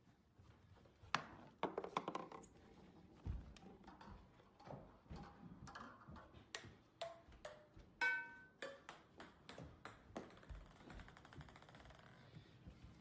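A ping-pong ball bouncing down carpeted stairs and over wooden stools and a wooden floor: a string of sharp, irregular ticks and clacks, one with a short ringing tone about eight seconds in, followed by a quick run of tiny rapid bounces near the end.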